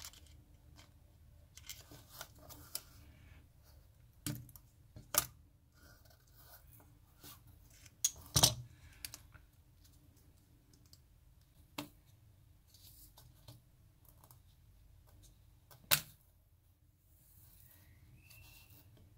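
Hands handling plastic shotgun shell wads and a pair of pliers on a rubber mat: scattered light plastic clicks and rustles, with a few sharper taps as parts are set down or knocked together.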